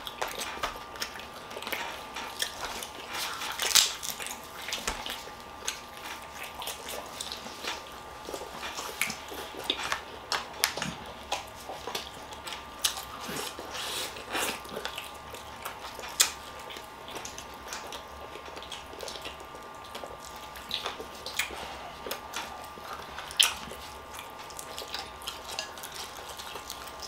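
Crab legs and lobster tails being eaten: irregular clicks and cracks of shells snapped and picked apart, mixed with chewing, a few cracks sharper and louder than the rest.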